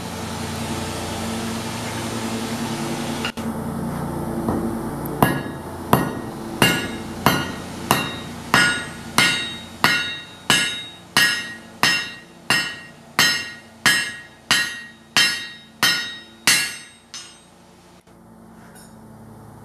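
Hand hammer striking a red-hot 1018 steel rivet blank set in a bolster block on an anvil, spreading its head. There are about nineteen ringing blows at a steady pace of roughly three every two seconds, and the last one is lighter. Before the hammering starts, the forge runs with a steady noise.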